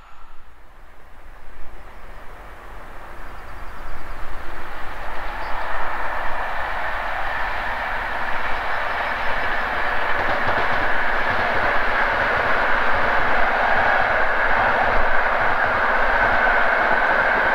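Locomotive-hauled passenger train running along the line, its wheels rumbling on the rails. The noise builds over the first few seconds, then stays steady.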